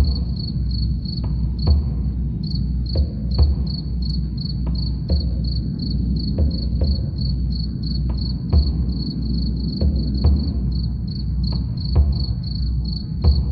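Crickets chirping steadily, about three high chirps a second, over a slow, deep drumbeat.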